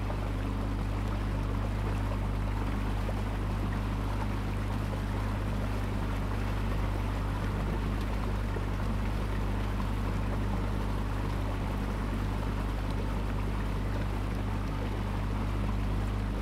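Boat engine running at a steady speed, a constant low hum, with water rushing and splashing along the hull.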